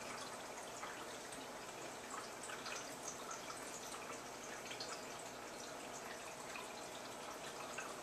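Aquarium water trickling and dripping steadily: a constant bed of small splashes and droplets.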